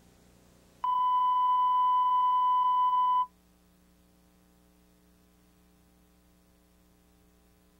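Steady electronic test tone, one unchanging beep that starts abruptly about a second in and cuts off sharply after about two and a half seconds.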